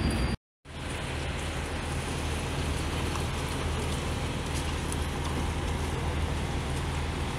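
A steady low engine drone under an even hiss of rain, after a short gap of silence near the start.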